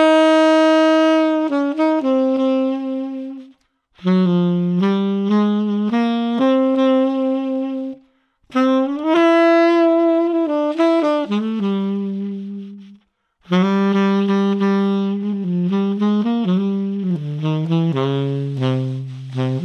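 Unaccompanied tenor saxophone played through a Boston Sax Shop E-Series hard rubber mouthpiece. It plays four melodic phrases of held and moving notes, with short breaths between them.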